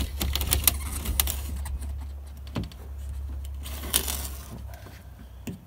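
Yellow snap-off utility knife being handled, its blade slider clicking out in a run of quick small clicks, with a few more clicks later, over a low steady hum that fades out near the end.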